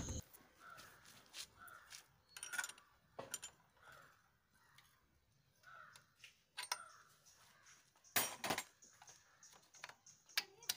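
Sharp metallic clicks and taps of a hand tool fitting the spark plug into a scooter engine's cylinder head, the loudest about eight seconds in. Faint bird calls come and go in the background.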